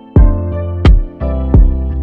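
Background music: sustained keyboard chords and bass over a steady beat, with a heavy low drum hit about every 0.7 seconds.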